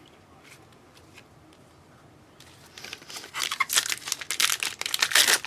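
Foil wrapper of a trading card pack crinkling and tearing as it is opened by hand, starting about halfway through.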